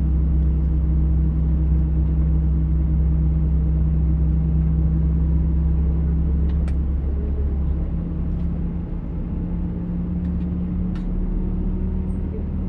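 Airbus airliner cabin during taxi: a steady low rumble and hum from the jet engines, easing slightly about two-thirds of the way through, with a couple of faint clicks.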